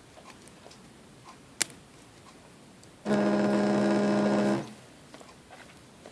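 A sharp click, then about a second later a steady electric-sounding buzz with a low hum in it. The buzz starts abruptly, holds for about a second and a half, and cuts off.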